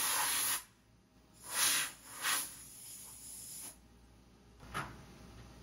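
Compressed-air blow gun blowing chips and coolant off a machined part in a CNC mill vise: a steady hiss that cuts off under a second in, then two short blasts, a fainter hiss, and one more brief puff near the end.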